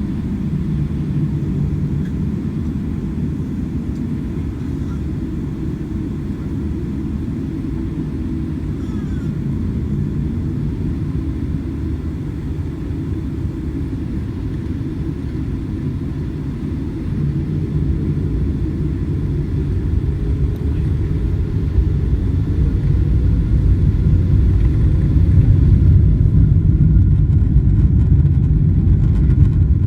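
Boeing 777-300ER heard from inside the cabin: a steady low rumble of engines and airframe that grows louder from about halfway in. A faint rising whine comes in near the end.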